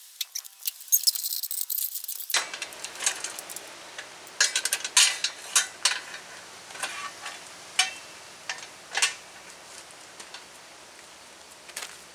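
Hand tools and metal parts being handled: a high hiss with rapid clicks for about two seconds, then scattered metal clinks and knocks, some ringing briefly.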